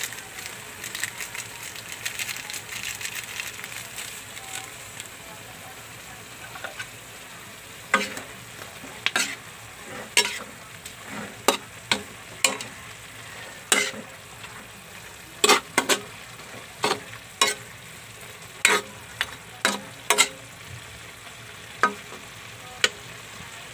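Pork and string beans sizzling in a wok while a spatula stirs them. From about a third of the way in, the spatula knocks against the pan in sharp clacks, roughly once a second.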